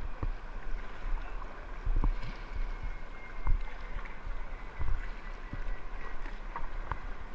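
Moving river water and kayak paddle strokes splashing, with irregular knocks, over a steady low rumble on the microphone.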